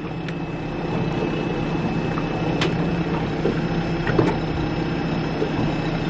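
A small boat's engine idling steadily out of gear.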